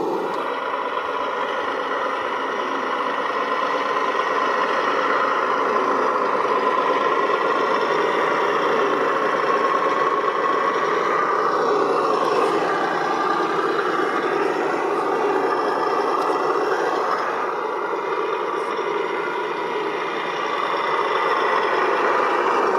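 Recorded MAN V8 truck engine sound, thin with no deep bass, running steadily and rising and falling in pitch a few times about halfway through as it revs.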